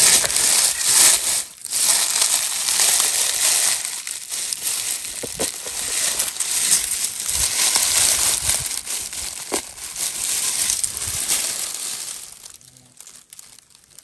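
Dry forest litter, leaves and twigs, rustling and crackling close to the microphone, a dense run of small crunches that dies away about two seconds before the end.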